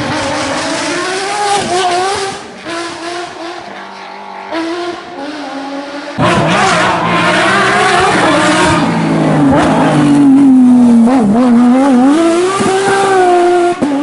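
Porsche race car engines at speed, the note climbing and dropping through gear changes. A louder car comes in sharply about six seconds in, and its engine note dips and then climbs again toward the end.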